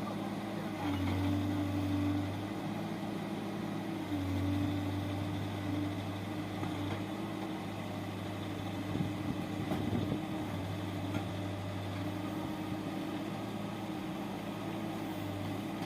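Backhoe loader's diesel engine running steadily, its note stepping up and back down a few times as it takes load.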